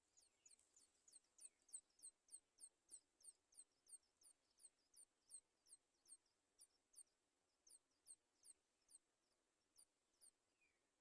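Faint, fast series of short, high, thin bird chirps, each sliding down in pitch, about three a second at first and then more spaced out.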